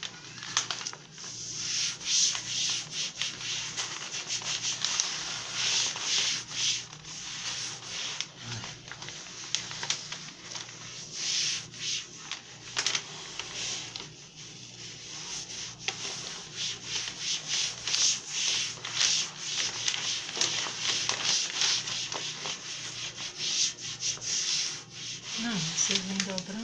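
A cloth rubbed in quick, repeated strokes over self-adhesive contact paper on a glass tabletop, pressing the sheet flat as it is laid.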